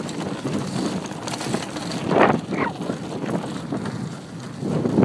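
Mountain bike riding fast over a rough dirt trail: tyres rolling over dirt and roots, the bike rattling, and wind buffeting the microphone, with a louder swell about two seconds in.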